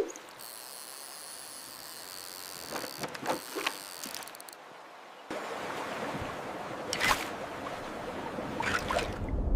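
Steady water ambience, with a few short splashes. It gets louder about five seconds in.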